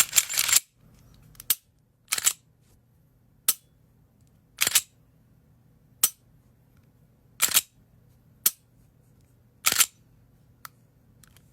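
Sharp clicks and clacks from a Polymer80-frame Glock 19 pistol being worked by hand, about nine over ten seconds at irregular spacing, short snaps alternating with slightly longer clacks. The pistol's trigger is faulty: it depresses by itself every time the finger is lifted.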